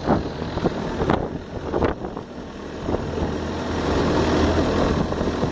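Boat engine running steadily under way, with wind and water noise. Three sharp knocks come in the first two seconds, and the engine drone swells louder near the end.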